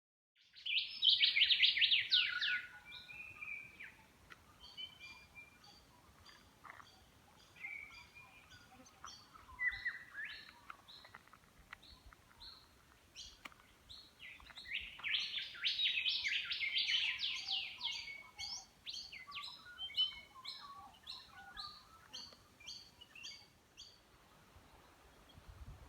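Songbirds chirping: a dense flurry of quick high notes about a second in and another, longer one a little past the middle, with scattered single chirps between.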